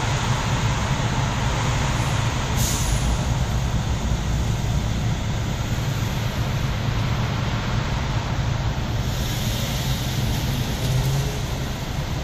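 Steady in-cabin vehicle noise, a low engine hum with road and traffic noise, heard from inside a car creeping along in slow highway traffic. A brief sharp noise comes about three seconds in.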